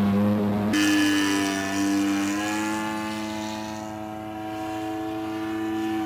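Model airplane engine and propeller running in flight at a steady pitch, heard close up on board at first, then from the ground as the plane flies overhead. The sound changes abruptly under a second in, and the pitch rises slightly a couple of seconds later.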